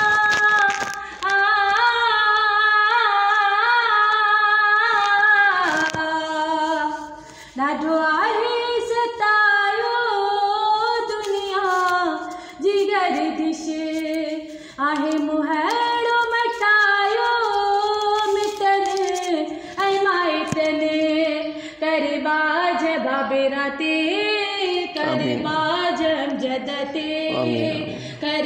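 A woman singing a devotional prayer song (dua) unaccompanied, in long held notes and slow, winding melodic runs.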